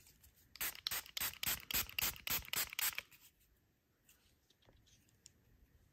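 Quick run of scratchy rustling strokes, about five a second, from hands handling and rummaging among rock specimens; it stops about three seconds in, leaving only a few faint clicks.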